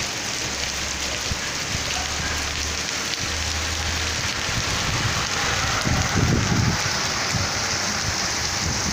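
Heavy rain pouring steadily, a dense hiss of rain on the street and surfaces, with a low rumble about six seconds in.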